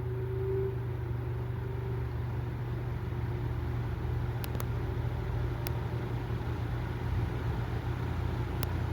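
Vintage 1960s Dominion 20-inch box fan running, most likely on low speed: a steady motor hum with a rush of moving air. A faint whine rises slightly in the first second or two and fades as the fan settles into its run, and there are a few faint ticks.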